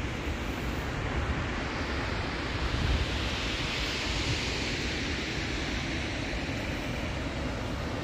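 Wind blowing across a phone's microphone outdoors: a steady rush with low rumbling buffets.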